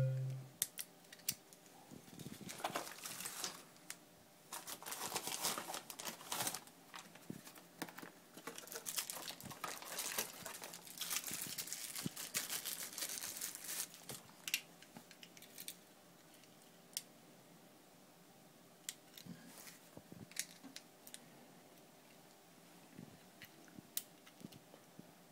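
Hands handling a small plastic key-fob camera: a brief low thump at the very start, then crinkling and rustling from about 2 to 14 seconds in, followed by scattered small clicks.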